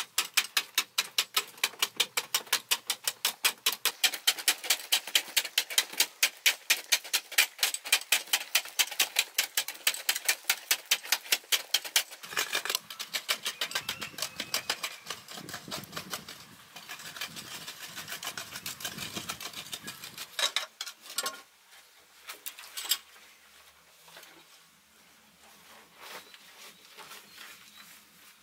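Hand hoes chopping into a packed clay earth wall in a fast, even run of strikes, about three or four a second. About twelve seconds in the strikes give way to softer scraping and scooping of loose soil, with a few last scattered strikes, and it grows quieter near the end.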